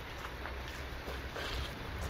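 Steady low rumble with wind on the microphone, and a few faint footsteps on gravel.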